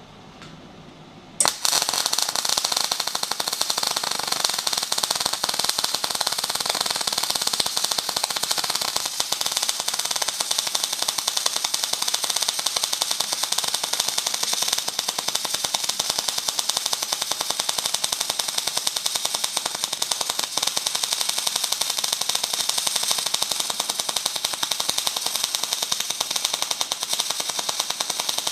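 MIG welding arc from a Magmate 150 wire-feed welder turned down to 120 amps, struck about a second and a half in and then crackling steadily.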